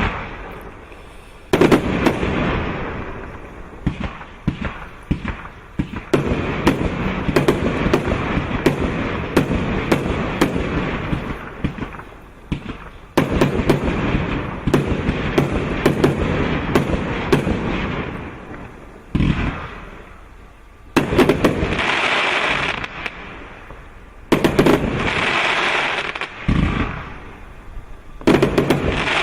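A 152-shot automatic firework cake firing in volleys: rapid strings of sharp shots and bursts, each followed by several seconds of dense crackling. The volleys come in waves with short lulls between them.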